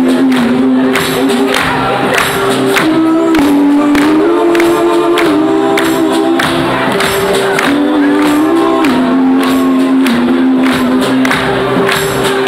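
Live band music: sustained chords, sung or held, stepping from one to the next over a steady beat of about two strokes a second.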